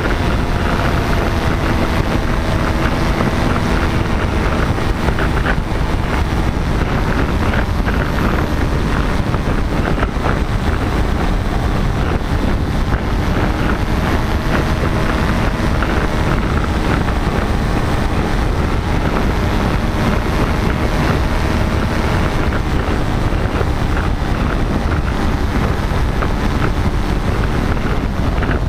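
Paramotor engine and propeller running steadily in flight, largely buried under heavy wind noise on the microphone.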